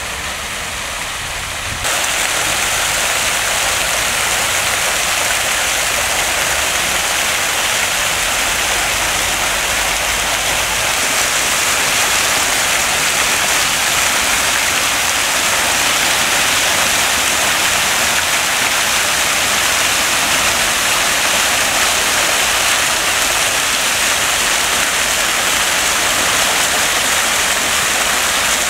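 Fountain jets splashing into a tiled basin: a steady rush of falling water that jumps louder about two seconds in.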